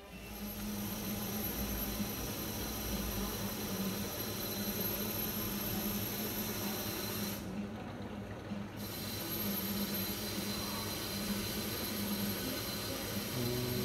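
A machine running steadily: an even hiss with a low hum and a thin high whine. About halfway through, the high part drops out for roughly a second and then returns.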